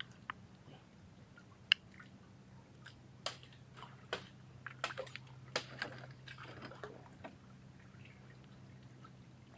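Clusters of oysters being handled in shallow water: scattered sharp clicks and knocks of shell, with water dripping. A single sharp click just under two seconds in is the loudest, and more knocks bunch together in the middle, over a faint steady low hum.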